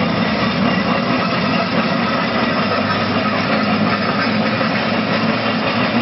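Aveling & Porter compound steam road roller running, a steady, even mechanical noise with no distinct beats.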